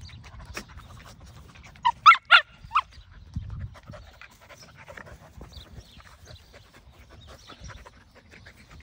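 Australian Cattle Dogs play-wrestling: a quick run of four short, high yips about two seconds in. Then softer panting and scuffling.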